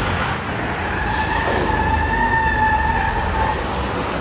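Mercedes-Benz SUV running in an underground car park: a steady low engine rumble, with a high, steady squealing tone that lasts about two and a half seconds.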